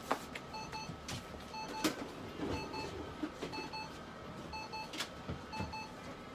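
Red-light therapy unit beeping a short double beep about once a second while it runs its treatment cycle, with a faint steady whine underneath and a few sharp clicks.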